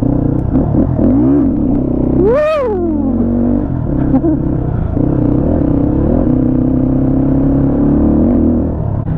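250 cc motorcycle engine running while being ridden, with one quick rev that climbs sharply in pitch and drops back about two and a half seconds in.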